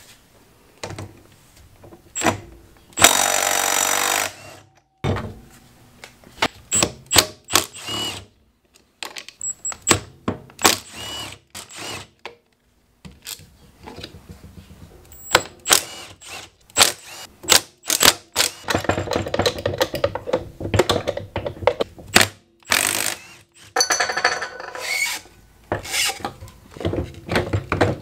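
Cordless impact wrench hammering in short runs as it undoes nuts on a scooter engine during teardown: a two-second run about three seconds in, a longer one around the middle, and more near the end. Between runs, sharp clicks and clatter of sockets and metal parts on a steel bench.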